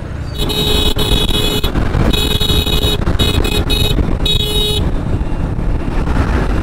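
A vehicle horn honking in a run of blasts, a long one of about a second and then several shorter ones, ending about five seconds in. Under it runs the steady low rumble of a motorcycle riding along the road.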